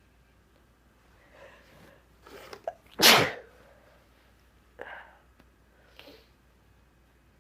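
A person sneezing: a few short catching breaths, then one loud sneeze about three seconds in, followed by a couple of softer breaths.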